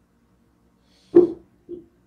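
Two glass bottles wrapped in a cloth set down on a wooden table: a dull, loud thud about a second in, then a softer second knock as the bundle settles.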